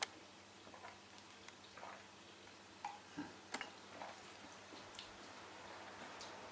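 Sharp, light ticks about every second and a half in a quiet room, with faint sipping through a straw from a glass of juice.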